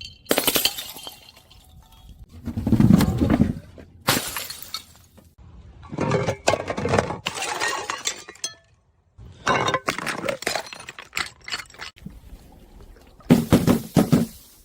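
Glass bottles smashing, one after another: about six separate breaks, some with a heavy low thud, each followed by shards crackling and tinkling.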